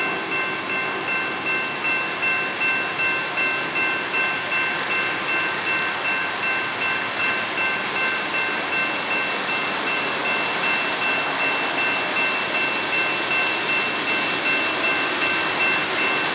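BNSF coal train approaching behind GE AC4400CW and SD70MAC diesel locomotives, its engine and wheel noise growing louder. Over it a railroad crossing bell rings steadily at about two strikes a second.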